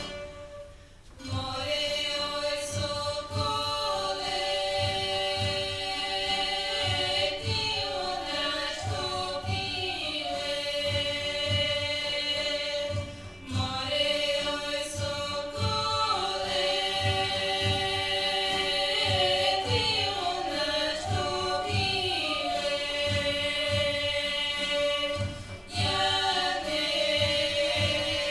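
Recorded choral music in a Balkan folk style: a choir of voices singing long held lines over a steady low drum beat. It comes in after a brief lull about a second in, and breaks off briefly twice, once midway and once near the end.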